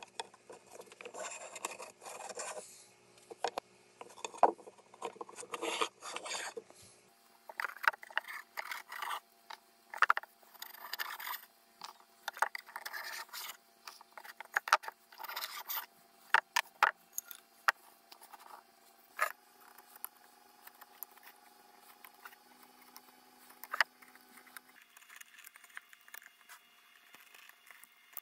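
Blade shaving and scraping a wooden board by hand: short, irregular scraping strokes with sharp clicks between them.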